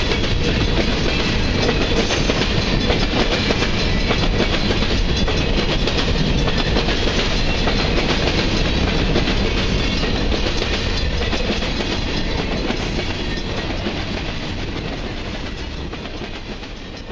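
Freight cars of a grain train rolling past, their wheels clicking steadily over the rail joints, then fading away over the last few seconds.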